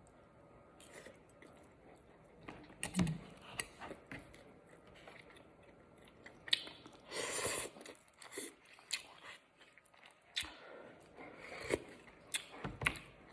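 A person chewing and eating a meal of noodles and chicken close to the microphone, with scattered small clicks and one longer burst of noise about seven seconds in.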